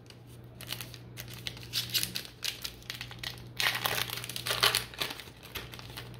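A trading-card pack wrapper being torn open and crinkled by hand, in irregular rustling spells that are loudest about two seconds in and again around four seconds in. A faint, steady low hum runs underneath.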